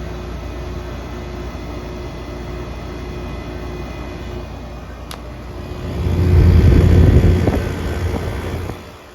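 2004 Daewoo DWC-054R 5,350 BTU window air conditioner running with a steady blowing noise and a faint hum. There is a small click about five seconds in, then a much louder low rumble builds about six seconds in and drops away suddenly near the end.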